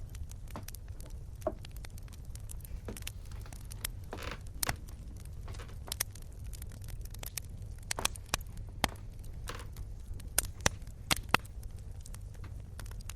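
Wood campfire crackling: irregular sharp pops and snaps over a low steady rumble, with a run of louder pops near the end.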